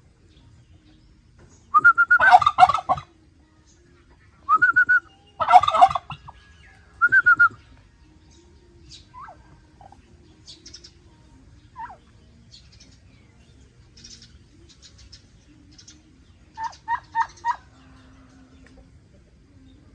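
Turkeys gobbling: several loud rattling gobbles in the first seven seconds or so. Fainter high chirps follow, with a quick run of four notes near the end.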